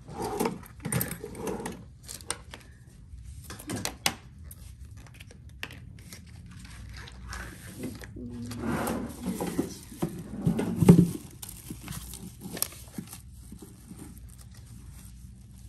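Crinkling and rustling handling noise with scattered light clicks and knocks, busiest about nine to eleven seconds in.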